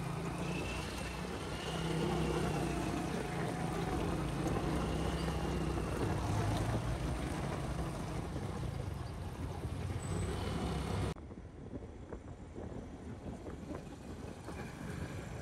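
Road traffic passing close by: car and motorcycle engines running, with tyre noise on asphalt. About eleven seconds in the sound drops suddenly to quieter, more distant traffic.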